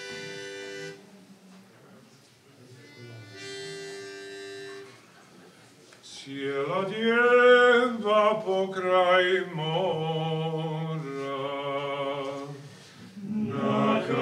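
A reed pitch pipe sounds two short steady notes, then men's voices take up and hold their starting pitches, and about thirteen seconds in a male a cappella vocal group starts singing together.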